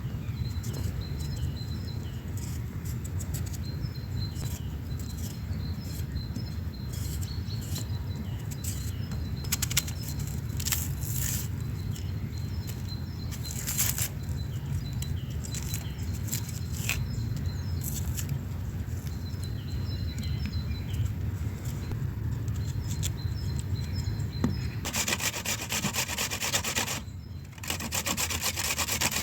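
Small birds chirping over a steady low rumble, with a few sharp clicks. About twenty-five seconds in, a harsh, continuous scraping starts, stops for a moment, then resumes.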